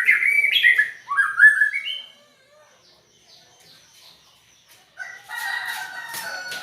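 White-rumped shama singing: a burst of loud, quick whistled notes sliding up and down over the first two seconds, then softer scattered notes after a pause.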